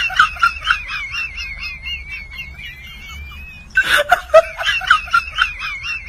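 High-pitched laughter: rapid cackling pulses with a wavering squeal running over them. The same laugh starts over again a little past the middle.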